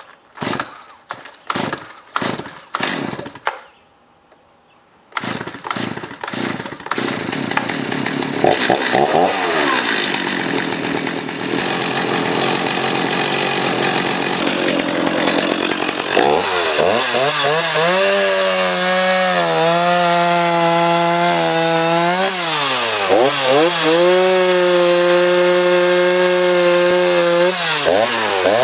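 Stihl MS 290 56cc two-stroke chainsaw cold-started with several pulls of the starter cord, catching about five seconds in and running. From about halfway it runs at high speed, cutting into a small birch log, its pitch dipping briefly twice.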